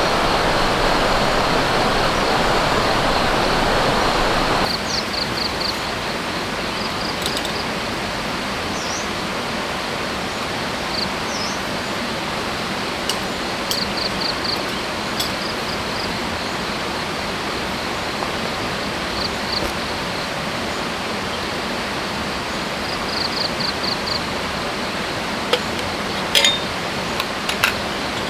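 Forest stream running as a steady rush of water, louder for the first few seconds and then suddenly quieter. Over it come repeated short high chirps in quick runs of four or five, now and then a single chirp, and a few sharp clicks near the end.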